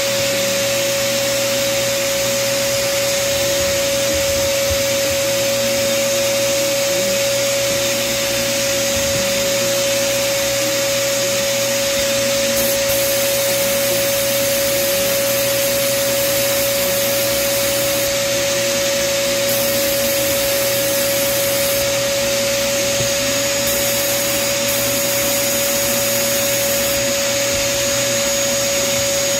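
Sandblast cabinet running for glass etching: a steady loud hiss of air and abrasive with a constant whine from the cabinet's dust-collector blower.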